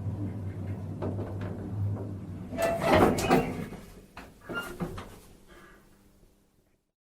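Elevator with a steady low hum, then a loud rattling clatter about two and a half seconds in and a second, smaller clunk about a second later, typical of the elevator doors sliding; the sound then fades out.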